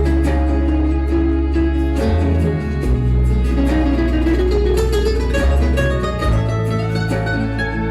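Live band playing a flamenco-style instrumental led by guitar, over sustained bass notes and a regular beat of percussion strokes, with a note gliding upward near the middle.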